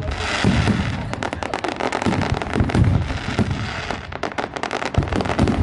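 Fireworks display: dense crackling and popping over repeated low booms from bursting shells, overlapping continuously.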